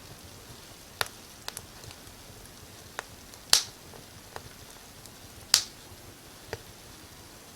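Firewood burning in a fireplace, crackling with sharp pops at irregular intervals over a faint steady hiss. The two loudest pops come about three and a half and five and a half seconds in.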